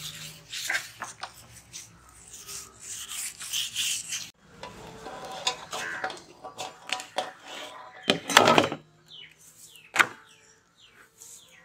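Butter in its paper wrapper rubbed back and forth over a large metal tray, a scratchy rubbing. Then dough is kneaded and handled in a steel bowl, with a loud run of knocks about eight seconds in and one sharp knock at ten as the lump is lifted onto the tray. Birds chirp briefly near the end.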